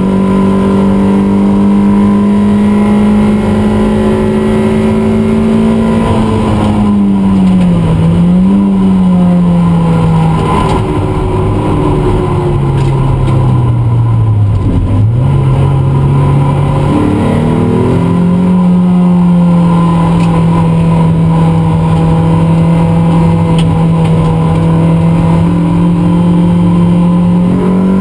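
Toyota MR2 race car's engine heard loud from inside the cockpit at track speed. Its pitch holds steady, dips and recovers about a quarter of the way in, then falls to its lowest as the car slows for a corner around the middle. It climbs back and holds steady again for the last third.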